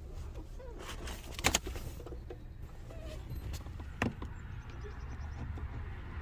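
A few sharp plastic clicks and taps as the door handle trim on a Fox-body Mustang door is worked into place, the loudest a double click about a second and a half in and another about four seconds in, over a steady low rumble.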